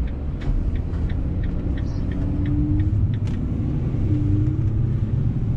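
Ram cargo van driving, heard from inside the cab: a steady low rumble of engine and road noise, with a row of light clicks about three a second over the first few seconds.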